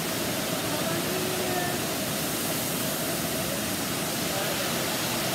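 Steady rushing of a waterfall's cascading water, an even noise that does not change, with faint voices of other people behind it.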